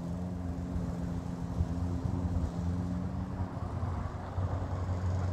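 Steady low hum of an idling engine, its higher tones fading out about three and a half seconds in.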